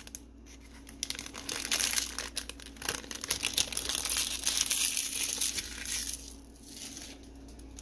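Foil wrapper of a Bowman baseball card pack crinkling as the cards are worked out of it, with many small crackles; it dies down in the last second or two.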